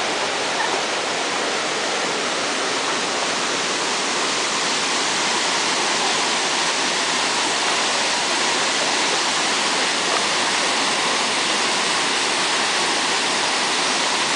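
Steady rushing of a waterfall and the river flowing over rocks below it.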